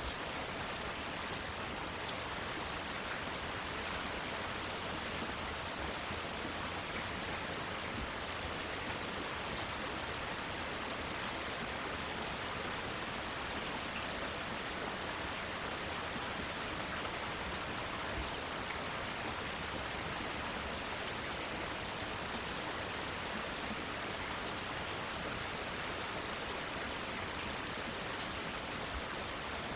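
Steady rain falling on garden plants and leaves, an even hiss with faint scattered drop ticks.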